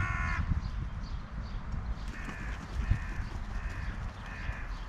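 Crows cawing: one loud harsh caw at the start, then a run of five fainter caws about every 0.7 seconds from about two seconds in.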